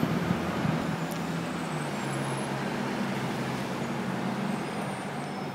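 City road traffic noise with a vehicle engine humming steadily, fading slightly near the end.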